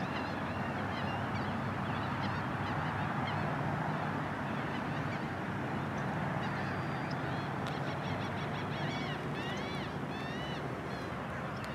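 A flock of birds calling over a steady rushing background, many short arched calls overlapping, busiest near the end.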